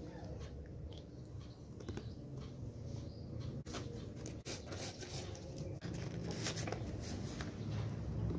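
Glossy photocards and a photo print being handled: light rustles and small taps, busiest in the middle, over a steady low hum.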